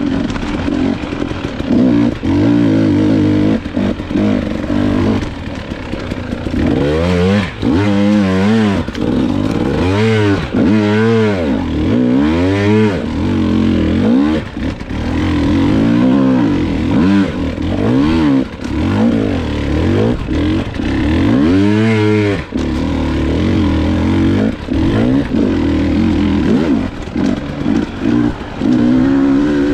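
Off-road motorcycle engine running at changing revs, its pitch rising and falling again and again as the throttle is opened and closed.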